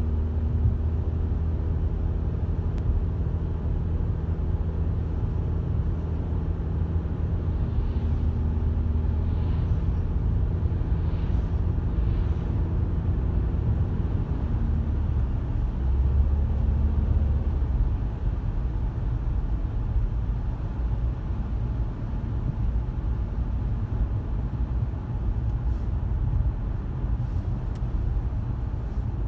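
Car driving on a wet road: steady low road rumble under the engine's hum, which shifts in pitch now and then.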